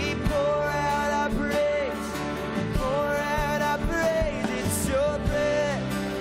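Live worship band music: a man sings long held notes over a strummed acoustic guitar and the band, with drum hits keeping the beat.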